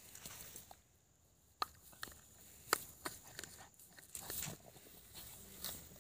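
A pug rolling and rubbing its face and body through dry grass, rustling it in bouts, with a few short sharp clicks, the two loudest about a second apart near the middle.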